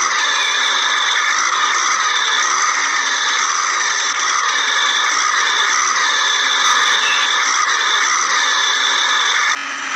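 Toy backhoe loader's electric motor whirring steadily with a rattle, in a repeating pattern, dipping briefly near the end.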